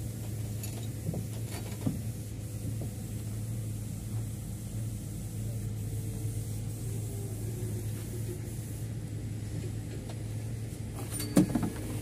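Steady low machine hum under a few light metal knocks, then a sharp, ringing metal clank near the end from the chain-slung John Deere 8400 transmission casing and its lifting chains as it is shifted.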